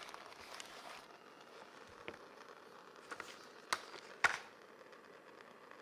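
Several short, sharp clicks and knocks, the two loudest a little past the middle, over a faint steady hiss.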